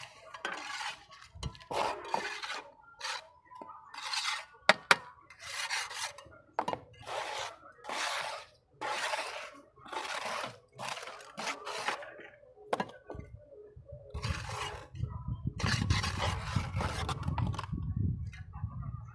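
Steel trowel scraping and smoothing wet cement mix in a metal tile mould, in repeated strokes about one a second. A sharp clink about five seconds in; the last few seconds turn heavier and lower as the mix is worked.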